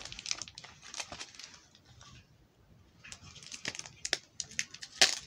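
Thin plastic protective film being peeled and crinkled off the body of a spherical smart speaker, in irregular crackling rustles. There is a short lull partway through, and the sharpest crackle comes near the end.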